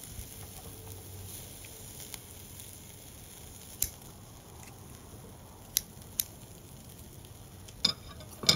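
Beef sizzling softly on the wire grate of a Japanese tabletop grill, with a few sharp clicks of metal tongs against the grate and meat as the slices are turned, the clicks bunching together near the end.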